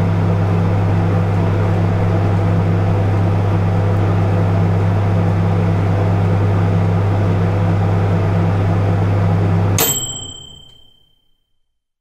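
Microwave oven running with a steady low hum. About ten seconds in it stops with a click and a single bell ding, the signal that the heating cycle is done.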